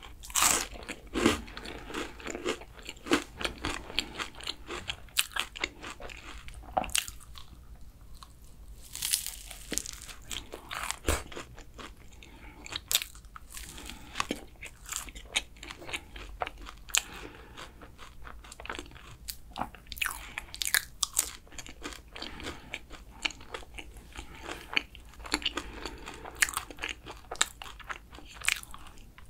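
Crisp, flaky kouign-amann pastry being bitten and chewed close to the microphone. Its caramelised, laminated layers give many sharp, irregular crunches and crackles.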